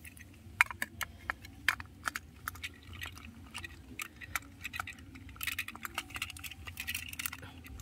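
Small plastic clicks and rattles, scattered irregularly, as the battery cover is fitted back onto a battery-powered toy train's underside.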